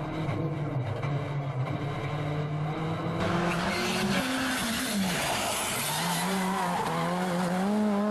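Škoda Fabia R5 rally car's turbocharged four-cylinder engine running at steady revs, heard from inside the car. About three seconds in, the car is heard from outside instead: a loud hiss of tyres on the road surface, with the engine revs dropping and then climbing again through a corner.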